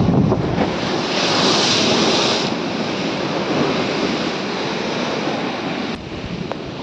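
Rough storm surf breaking on the sea wall and washing up across the concrete, a steady rush of water with a hissing surge of foam between about one and two and a half seconds in. Wind buffets the microphone.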